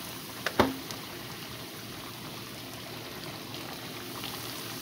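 Bluegill deep-frying in a pan of hot grease: a steady sizzle and bubbling of the oil, with two sharp clicks close together about half a second in.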